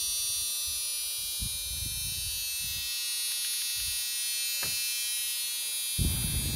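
Hand-built H-bridge inverter board with 12 MOSFETs running continuously on test, giving a steady high-pitched electrical whine and buzz. A few low thuds and a click come through, with the loudest knock near the end.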